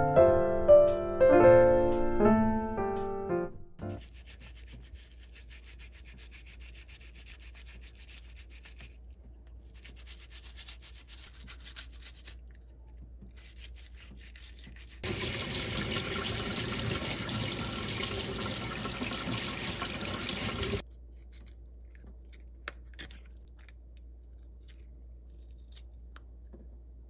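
Piano music ends about four seconds in. A brush then scrubs live abalone shells with a faint, scratchy rasping. Next comes a louder steady rush of tap water for about six seconds, and faint clicks near the end as the abalone meat is worked free of its shell.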